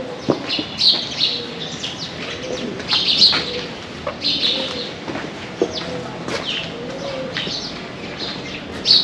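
Pigeons cooing repeatedly, with small birds giving short high chirps over them.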